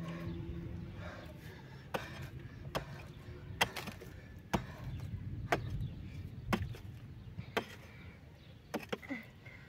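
Hammer striking a soft rock cave wall, a sharp knock about once a second, chipping out stone to enlarge the shelter.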